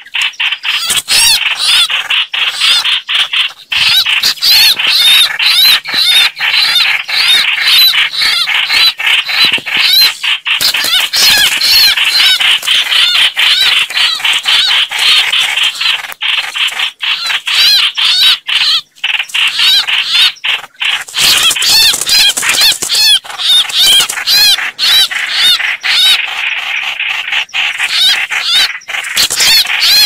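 Chao chảo bulbul distress calls: a loud, dense stream of rapid, shrill repeated notes with a few brief breaks, played as a lure for trapping birds.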